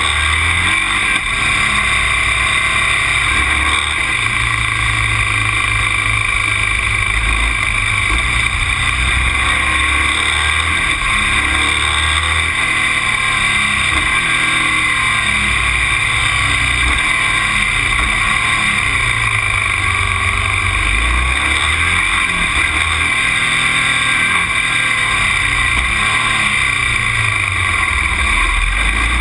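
A road vehicle being driven, heard from an onboard action camera: the engine note shifts up and down every few seconds under a steady, loud rush of wind and road noise.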